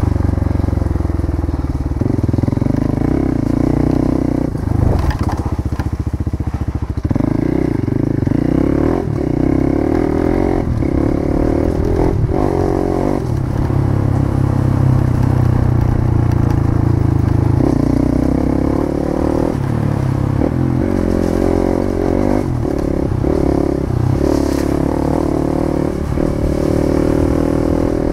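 A motor or engine running loudly and steadily, its low hum shifting in pitch every few seconds, with a few short knocks and scrapes over it.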